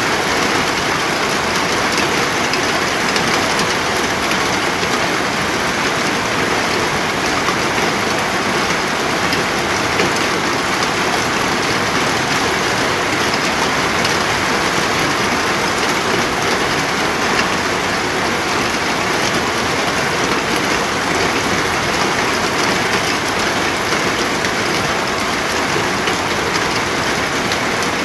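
Steady heavy rain falling, a dense unbroken hiss with fine drop patter.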